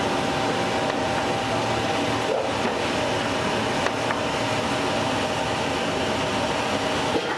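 Steady drone of a cupola furnace's electric air blower, with a faint constant whine over it.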